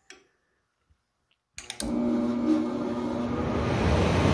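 A click, then after about a second and a half a few more clicks as the furnace door safety switch is held in. The furnace blowers then start, with a steady rushing hum that builds a little. The main blower runs continuously because the control board's 3-amp low-voltage fuse is blown, and the combustion blower runs a purge.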